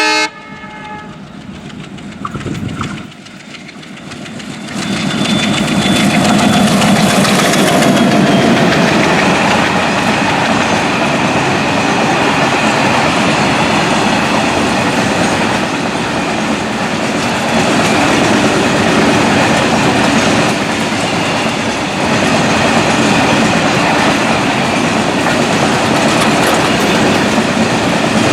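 WDM3A ALCO diesel locomotive gives a short horn blast right at the start. About five seconds in, the train arrives and passes close: the locomotive's 16-cylinder ALCO diesel engine chugs past, then a long string of BCNA covered freight wagons rolls by with a steady loud rumble of wheels on rail.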